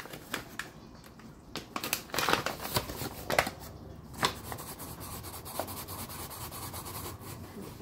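A flour bag rustling and crinkling as it is handled and flour is poured from it into an aluminium foil pan, with several sharp crackles in the first half and softer steady rustling after.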